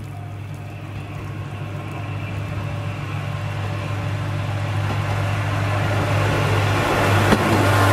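Diesel engine of an approaching JNR-type KiHa 20 railcar (DMH17-family eight-cylinder diesel) running with a steady low hum that grows louder as it nears. There is one sharp clack near the end.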